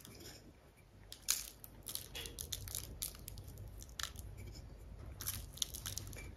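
Coarse raw cane sugar being sprinkled over biscuit dough on a baking tray: faint, irregular crisp ticks and crackles.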